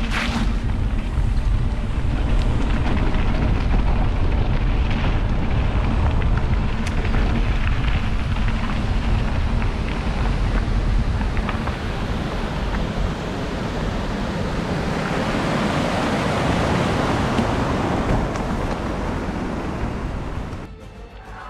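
Wind buffeting an action camera's microphone on a moving mountain bike: a steady, loud rushing rumble with scattered small clicks and rattles, ending in a sharp drop in level just before the end.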